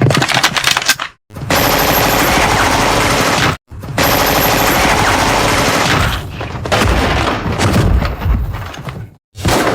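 Rapid-fire sci-fi gun sound effects from a tokusatsu hero show, played as several separate clips with short silences between them. The longest clips are dense, continuous streams of shots.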